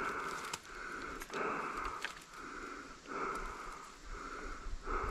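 Drawn-out Canada goose honks, about seven in a row at a steady pitch, roughly one every three-quarters of a second.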